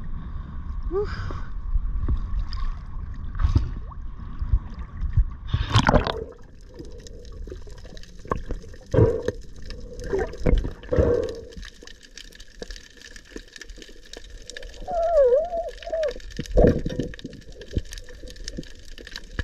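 Sea water sloshing and gurgling around a camera at the surface, then a loud splash about six seconds in as the spearfisher goes under, followed by muffled underwater noise with scattered knocks and clicks and a brief wavering tone near the end.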